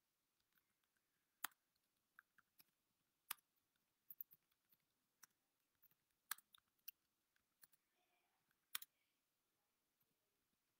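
Near silence broken by irregular sharp clicks and taps close to the microphone, about fifteen of them, with louder ones roughly every two to three seconds.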